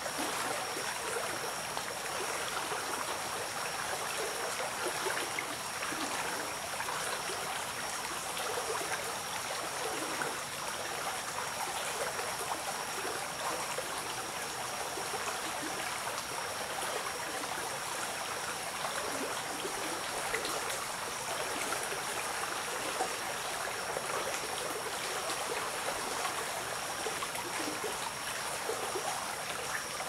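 Shallow forest stream running over its bed: a steady, even rush of water, with a thin steady high tone behind it.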